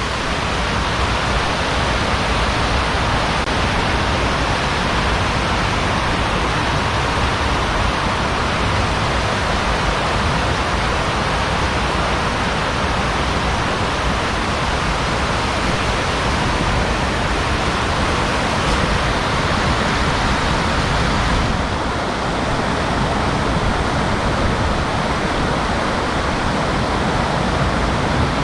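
Loud, steady rush of fast-flowing water tumbling down a channel, close to the microphone. It eases slightly about three quarters of the way through.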